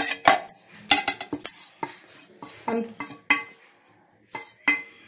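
A spoon clinking and tapping against a mixer-grinder jar while grated coconut and turmeric are added: about a dozen irregular sharp taps, some with a short ringing tone.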